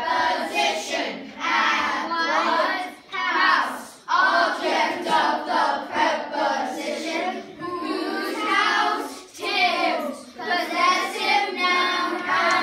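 A class of children chanting together in unison in put-on deep voices, reciting the steps of a sentence diagram in a sing-song rhythm.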